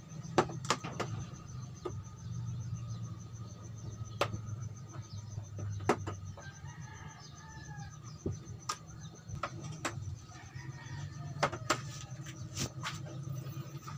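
Sharp clicks and taps at irregular intervals, about a dozen, as the locking clips along the edge of an LED TV panel are worked loose to lift it out of its backlight housing. A low steady hum runs underneath.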